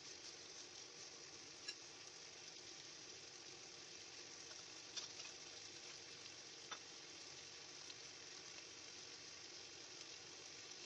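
Pork chops frying in a wok, a steady faint sizzle with a few sharp pops.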